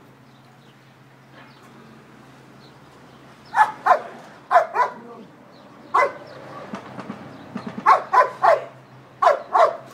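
A dog barking in short, sharp barks, about ten of them in quick pairs and triplets, starting about three and a half seconds in.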